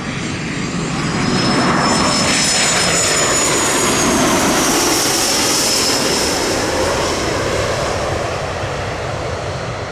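Gulfstream G450 business jet's two Rolls-Royce Tay turbofans going past. The jet noise swells about a second in, its high whine drops in pitch midway as it passes, and then it slowly fades.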